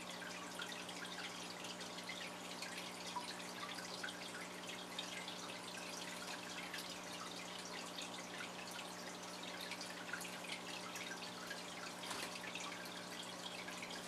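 Budgerigars chattering softly: a continuous scatter of short, high chirps and twitters. A steady low hum runs underneath.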